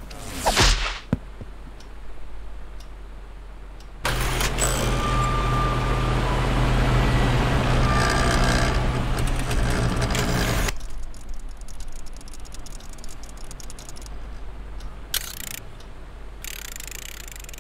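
Old metal-caged electric desk fan running: a steady motor hum under rushing air, loud from about four to ten seconds in, then quieter. A quick whoosh comes just after the start.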